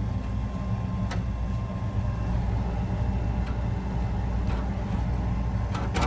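17-year-old gas furnace running with its burner lit: a steady low hum from the burner and fan motors, with a faint steady whine over it. A few light clicks stand out, one about a second in and a couple near the end.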